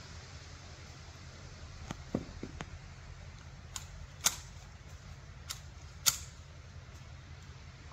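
Large hand garden shears snipping a bush: sharp snips at uneven intervals, two of them louder, over a steady low hum.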